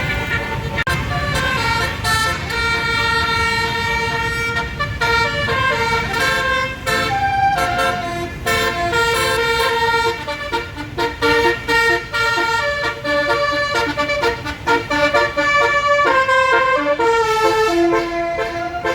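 Tour bus basuri horn playing a tune, holding notes and stepping from pitch to pitch, over a low rumble.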